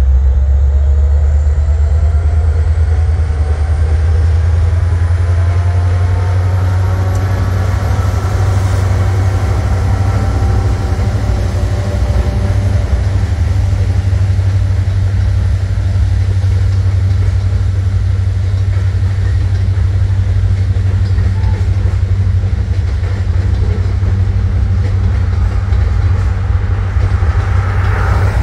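NYS&W freight train going up a grade over a steel bridge: the deep, steady drone of the SD33ECO and SD70M-2 diesel locomotives working hard under load, strongest at first, then the continuous rumble of covered hoppers rolling across the bridge. Rising and falling whines come and go through roughly the first half.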